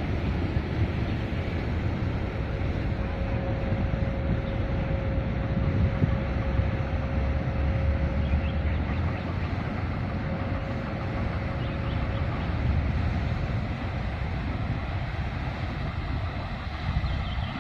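Wind buffeting the microphone: a steady, gusting low rumble and rush, with a faint steady hum underneath from a few seconds in until about two-thirds of the way through.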